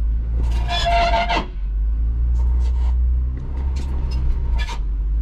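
Jeep Wrangler Rubicon's engine and drivetrain heard from inside the cabin as a steady low rumble while the Jeep crawls slowly over a rock ledge. There is a short burst of voice near the start, and a few scattered knocks and clicks in the second half.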